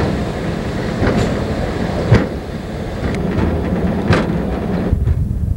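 Hi-rail truck running along a railway spur: a steady rumble of its wheels on the rails, with sharp clicks about once a second as the wheels cross rail joints, the loudest about two seconds in.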